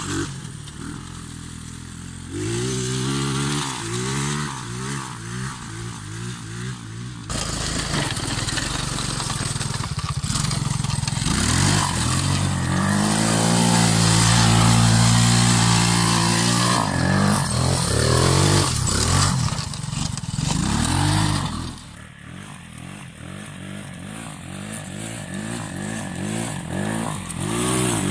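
Quad bike engine revving and accelerating as it is ridden, its pitch rising and falling again and again. The sound changes abruptly about seven seconds in and again about twenty-two seconds in, and it is loudest in the middle stretch during hard acceleration.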